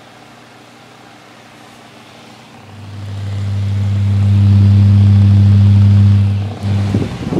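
Massey 9-inch electric box fan running with a steady whir. About two and a half seconds in, a loud low electric motor hum swells up, holds, and falls away shortly before the end. Then rough, fluttering wind from the fan buffets the microphone.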